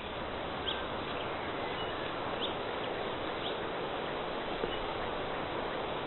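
Forest ambience: a steady rushing background with a few short bird chirps scattered through it.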